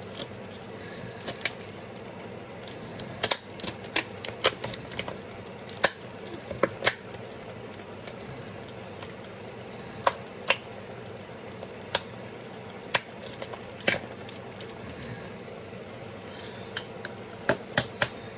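Irregular sharp clicks and taps, roughly one every second or two, from garlic being handled and prepared at the kitchen counter, over a steady low hum.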